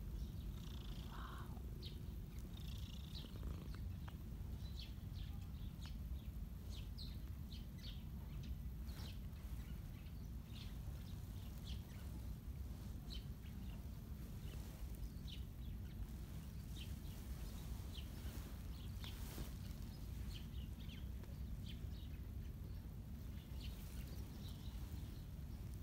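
Ginger cat purring close up, a steady low rumble that runs without a break. Short, faint bird chirps are scattered over it.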